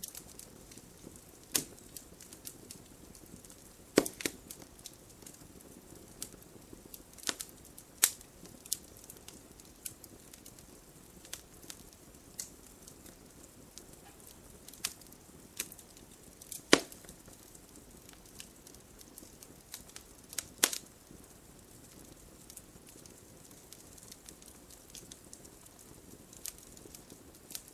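Campfire burning: a soft steady hiss of flames broken by irregular crackles and sharp pops of burning wood, the loudest snaps a few seconds apart.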